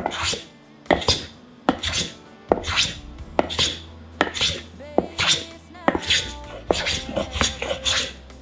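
Katsuobushi shaver: a block of dried bonito pushed over the plane blade of a wooden shaving box, each stroke a sharp, rasping scrape. The strokes come in a steady rhythm of about one a second, sometimes two close together.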